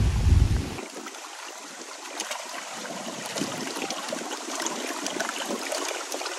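Small waves lapping and trickling against a stony lakeshore: a steady wash of water with small splashes among the stones. A low rumble at the very start cuts off just under a second in.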